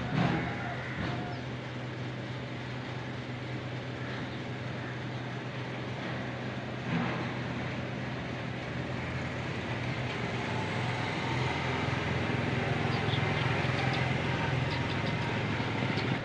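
A steady low mechanical hum over a background haze, growing a little louder about ten seconds in, with a short sharp sound near the start and another about seven seconds in.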